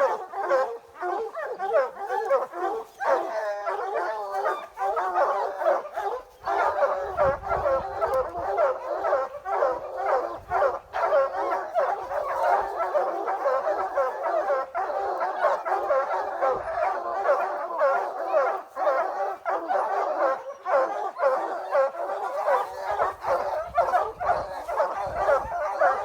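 A pack of bear hounds baying and barking without a break, many voices overlapping: hounds baying at a bear they have treed.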